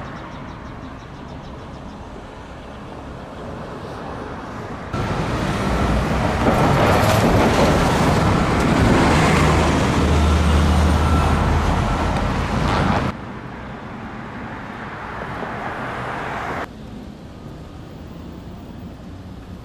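Street traffic: steady road noise from passing motor vehicles, swelling for several seconds in the middle as a vehicle with a low engine hum goes by close. The sound level jumps abruptly a few times.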